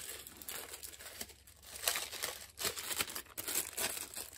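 Clear plastic bag crinkling in irregular rustles as a metal mounting plate is pulled out of it, louder from about two seconds in.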